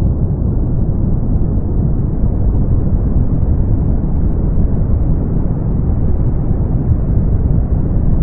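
Brown noise: a steady, deep, even rush of noise, heaviest in the bass and dying away toward the treble.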